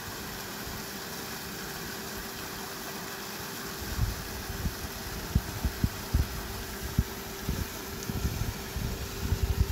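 Electric water pump running with a steady hum, its outlet jet of borewell water hissing and splashing onto a mud bank. Irregular low thumps join in from about four seconds in.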